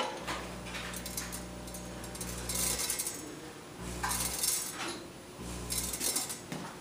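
Logical Machines S-4 automatic weigh filler running 1 g seed fills: its vibratory feed pan buzzes in spells of a second or two, and three times small portions of seeds rattle and clink into the steel weigh hopper and stainless bowl.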